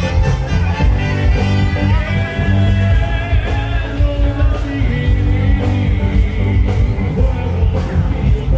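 Rock music with a sung vocal over guitar, bass and a steady drum beat.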